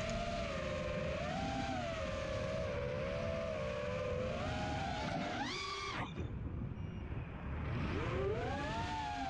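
FPV quadcopter's brushless motors and Demon 5045 props whining in flight, the pitch wavering up and down with the throttle. About five and a half seconds in the whine climbs sharply on a throttle punch and then falls away, rising again near the end, over wind rushing on the onboard camera.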